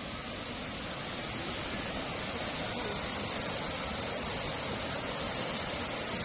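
Tumpak Sewu waterfall's many streams falling, a steady rushing noise that does not change.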